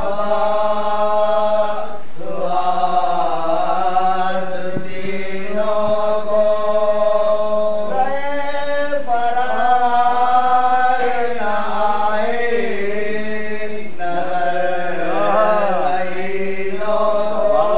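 A group of men chanting an Urdu salam, a devotional elegy, together in long, drawn-out melodic lines, with a brief break between phrases about every six seconds.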